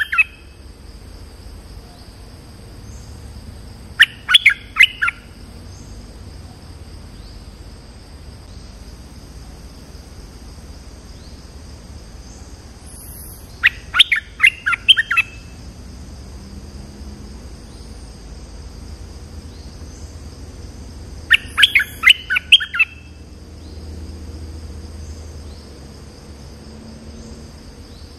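A bulbul (merbah lekir) sings three short phrases of quick notes, each lasting about a second, spaced roughly eight to ten seconds apart. A steady high-pitched insect drone runs underneath.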